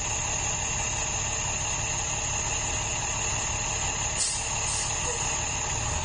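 School bus engine idling steadily, with a brief sharp sound about four seconds in.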